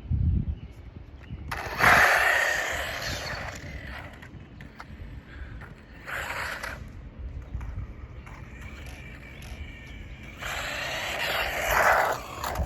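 Brushless-motored 1:16 scale 4WD RC car driven on its medium speed setting: three bursts of motor whine and tyre noise, about two seconds in, around six seconds in, and a longer one near the end.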